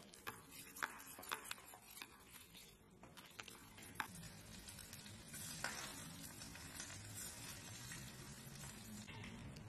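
A metal spoon scraping and clinking against a stainless steel bowl while mashing butter with minced garlic, with sharp clinks through the first few seconds. Softer scraping follows near the end as a knife spreads the garlic butter on a slice of bread.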